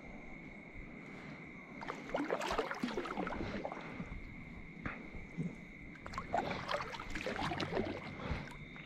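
Kayak paddle strokes dipping and splashing in calm lake water, with drips off the blade, starting about two seconds in.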